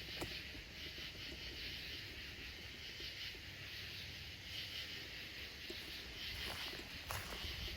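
Outdoor nature ambience: a steady high hiss over a low rumble, with a few faint clicks near the end.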